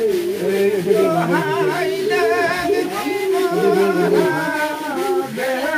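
Several voices chanting together in song, their lines overlapping at different pitches, with no instruments or beat.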